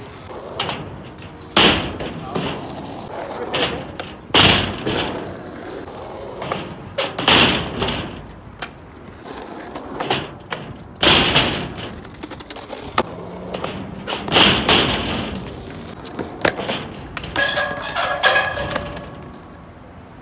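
Skateboard wheels rolling on asphalt, broken by a series of sharp, loud cracks as the board's tail is popped and the board slaps down on landing, about six of them a few seconds apart.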